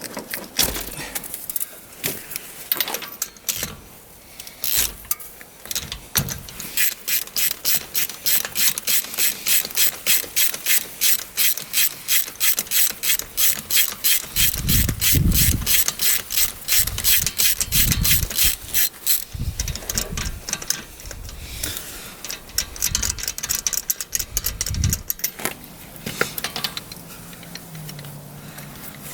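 Socket ratchet clicking as the spark plug is unscrewed from a Polaris Ranger 570 UTV engine: scattered clicks, then a long even run of about four clicks a second that stops about two-thirds of the way through. A few dull thumps come in the second half.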